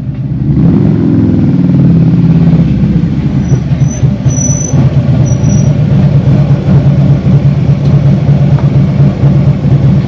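Harley-Davidson touring motorcycle's V-twin engine rising in pitch as the bike rides up and stops, then idling with a low, pulsing rumble.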